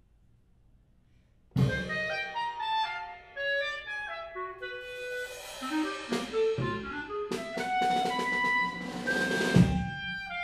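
Clarinet and drum kit playing together. After about a second and a half of near silence, both come in at once with a loud drum hit; the clarinet plays a melody of short, changing notes over drum hits and cymbals, with a louder stretch of cymbal wash and drums near the end.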